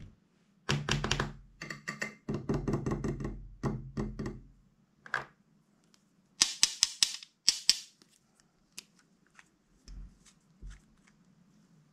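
Small plastic dropper bottles with figure caps handled close to the microphone: dense clattering clicks for the first few seconds, then a quick run of about seven sharp clicks, then scattered faint clicks and two soft thumps as a cap is worked loose. A faint steady hum runs underneath.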